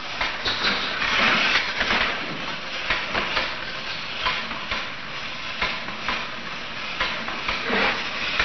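Mechanical robot fear stimulus with moving parts, built to frighten an infant monkey, running with a continuous rasping, rattling noise full of irregular clicks, heard through the hiss of an old film soundtrack.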